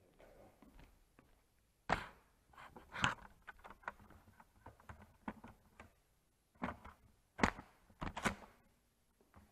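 Handling knocks and clicks from a Nerf Delta Trooper blaster with a camera mounted on it. A sharp knock comes about two seconds in as it is picked up, then scattered knocks and rattles as it is carried about, with the loudest knocks near the end.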